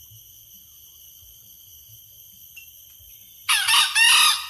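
Junglefowl rooster crowing once near the end: a short, clipped crow in two parts, about a second long.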